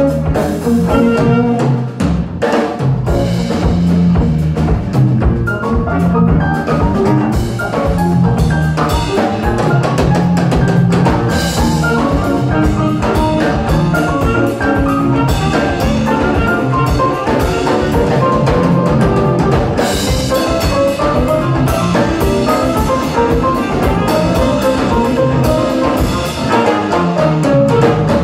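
Live jazz-funk band playing: drum kit, electric bass and guitar, with a tenor-range saxophone playing over them.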